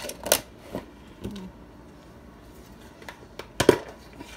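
A few short knocks and clinks of a utensil against a stainless-steel mixing bowl, the loudest about three and a half seconds in.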